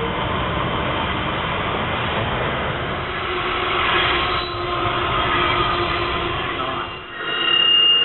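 Freight train hauled by Pacific National diesel locomotives passing with a steady rumble of wheels on rail. About seven seconds in, a loud, high-pitched steady wheel squeal rises over it.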